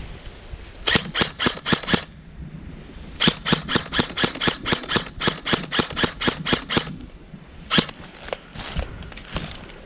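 Airsoft gun firing: a quick string of about six shots around a second in, then a longer run of about twenty shots at roughly five a second, then a few single shots near the end.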